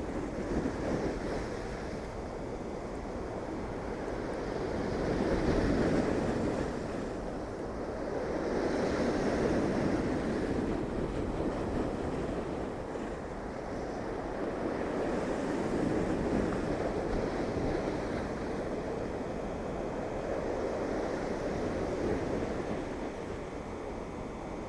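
Waves of the Irish Sea breaking and washing on the shore, the surf rising and falling in swells every few seconds, with wind buffeting the microphone.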